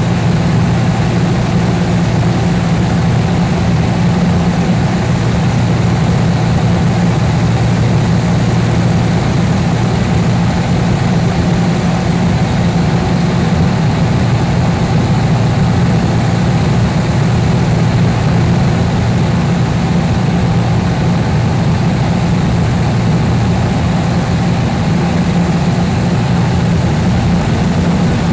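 Steady drone of a light aircraft's piston engine and propeller heard from inside the cabin, loud and unchanging.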